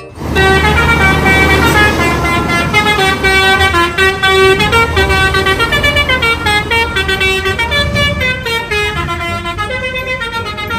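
Multi-tone 'telolet' bus air horn playing a long stepping melody, the notes changing several times a second, over a low engine rumble.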